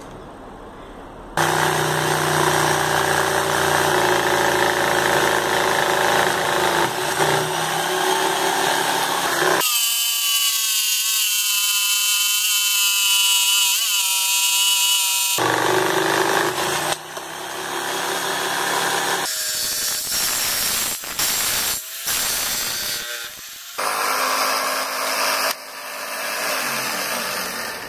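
Electric jigsaw running and cutting wood in a string of short edited clips. It starts about a second in and changes to a thinner, higher sound for several seconds in the middle. Near the end it breaks off and restarts several times.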